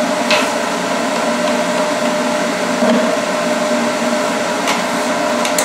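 Steady whirring hum of a motor or fan running, with a faint steady tone in it, over tomato sauce simmering in a cast iron skillet on a gas burner. A few faint ticks or pops come and go.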